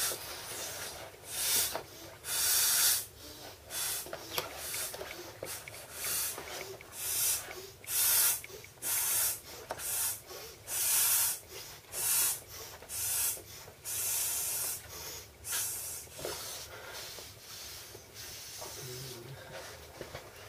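An inflatable swim ring being blown up by mouth: a quick series of breathy puffs, about one a second, as air is blown in through the valve. The puffs thin out and stop after about sixteen seconds.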